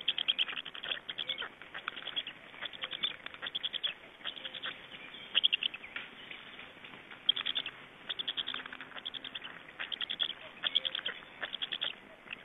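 Birds chirping in short trains of quick high notes, one burst roughly every second.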